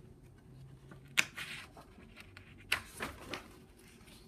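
A picture book's paper page being handled and turned: two short crisp rustles about a second and a half apart, each trailing off in softer rustling.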